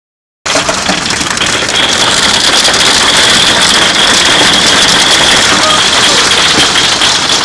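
Heavy storm downpour with hail: a loud, steady hiss of rain and fine rattling impacts, starting abruptly about half a second in.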